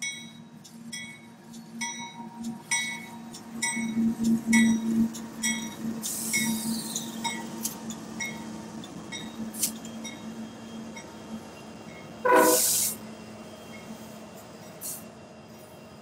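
Union Pacific double-stack freight train passing: the diesel locomotives' engines drone, loudest about four seconds in, then the rumble of the container cars follows. A bell rings steadily about once a second and fades as the locomotives go by, and a short loud burst comes about twelve seconds in.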